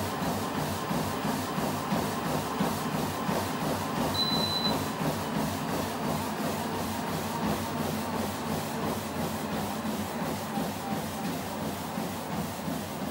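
Running footfalls, about three a second, landing on the moving belt of a Dripex folding motorized treadmill, over the steady rubbing hiss of the belt and motor. A short high beep sounds about four seconds in.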